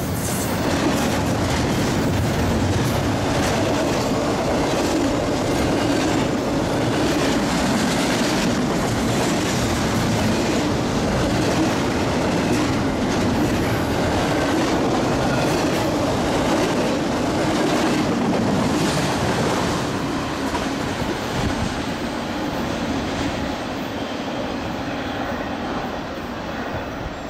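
Freight train cars rolling past, the wheels clicking over the rail joints, growing quieter over the last several seconds.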